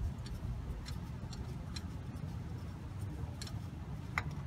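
Spin-on transmission filter on a 45RFE being unscrewed by hand: faint, irregular light ticks and clicks of the loosened filter and its threads turning, over a low steady rumble.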